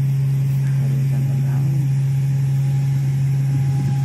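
Steady low mechanical hum at an even level, with a faint thin higher whine coming in about a second in.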